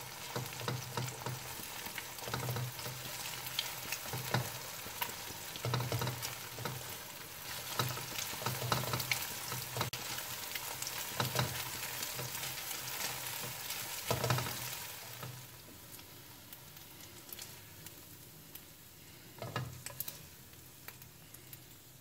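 Beaten eggs sizzling in hot oil in a wok while a spatula stirs and scrapes them, with scraping strokes every second or two. The sizzling and stirring die down about two-thirds of the way through, and a single knock comes near the end.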